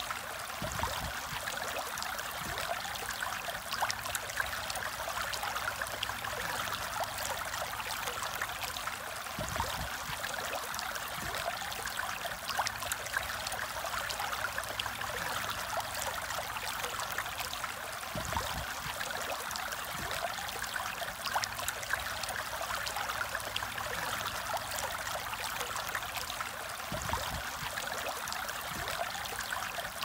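Rushing stream running over rocks: a steady, unbroken water noise.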